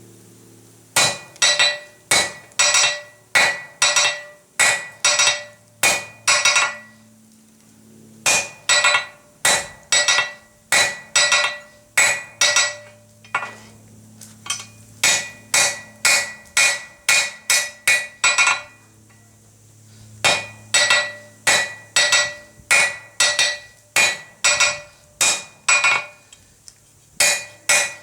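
Blacksmith's hand hammer striking hot steel flat bar on an anvil, necking the bar down: runs of ringing blows about two a second, with short pauses between runs.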